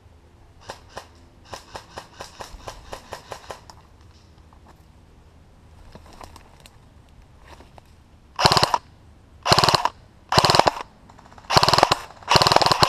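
Airsoft guns firing: first a quicker string of fainter, more distant shots, about six a second, then from about eight seconds in five loud, close full-auto bursts from an airsoft rifle, the last one the longest.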